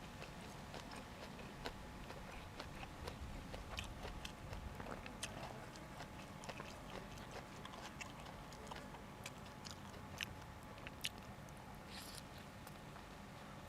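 A person chewing food close to the microphone, with frequent small crisp clicks and crunches.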